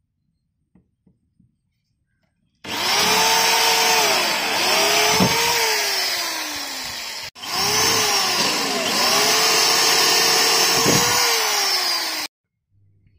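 Corded electric drill with a hole-saw bit cutting through a car's plastic rear bumper, in two runs of about five seconds each. The motor's pitch sags and recovers several times as the bit bites into the plastic.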